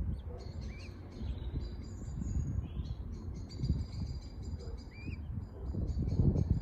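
Birds at a nest on the water calling in rapid, high-pitched chirps and peeps, with a few thin, longer whistled notes and a couple of short rising calls. Underneath is a louder low rumble.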